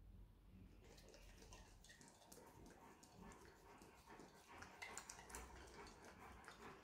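Faint wet licking and smacking as a Bernese Mountain Dog licks batter off a metal wire whisk. Quick, irregular licks start about a second in.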